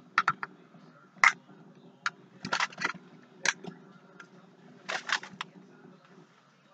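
Crinkly wrapping being pulled off a small bowling-pin salt and pepper shaker set by hand, rustling and crackling in short irregular bursts.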